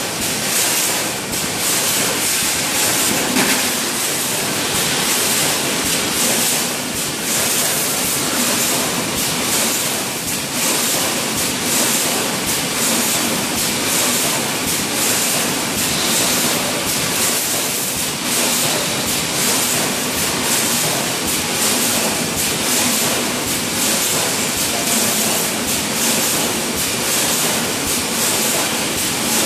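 Wire mesh welding line with its mesh stacker running: a steady high hiss-like noise with frequent small metallic knocks and clatter.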